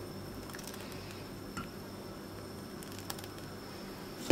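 Metal ladle stirring thick, simmering rice pudding in a stainless steel pot: soft squelching with a couple of faint ticks of the ladle against the pot. There is a sharp knock at the very end.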